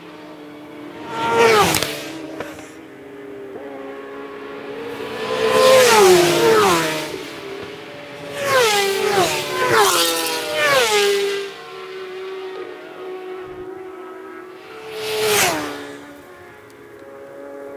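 Racing superbikes passing at speed one after another, about six pass-bys, each engine note falling in pitch as the bike goes by. Several bikes pass in quick succession in the middle, with engines still heard running further down the course between passes.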